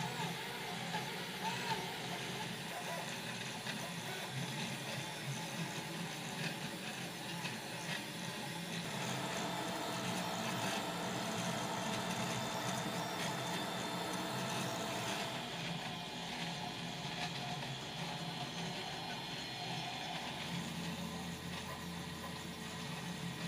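FDM 3D printer running a print: stepper motors whir and whine in tones that change as the head moves, with a steady whine held for several seconds in the middle, and the cooling fan running underneath.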